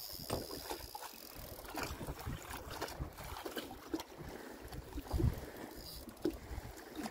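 Wind buffeting the microphone on a small fishing boat, with water lapping at the hull and scattered light knocks.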